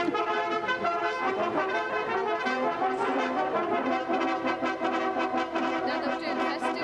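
Music played by brass instruments, trumpets and trombones sounding steady, sustained notes.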